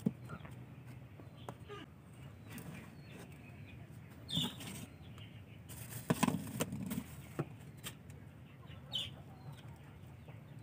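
Loose soil substrate pressed down by hand in a plastic tub, with soft crunching and rustling, then a few short knocks and rustles of handling. The loudest comes a little past the middle.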